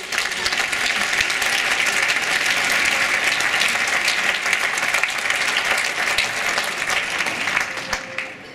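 Audience applauding, a dense, steady clapping that thins a little near the end.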